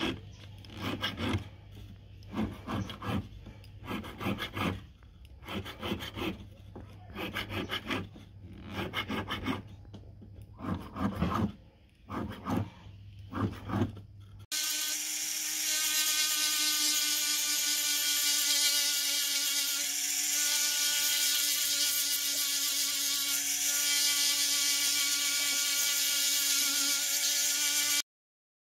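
Hand file rasping back and forth across a metal ring band in regular strokes, about one a second. About halfway through it gives way abruptly to a louder steady mechanical whir, which cuts off suddenly near the end.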